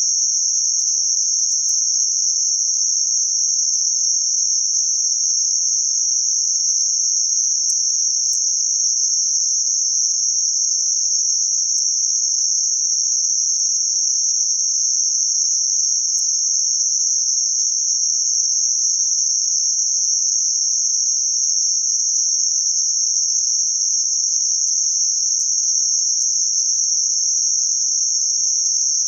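Electronically generated band-limited noise centered around 6051 Hz: a steady, unchanging high-pitched hiss with nothing lower or higher in pitch.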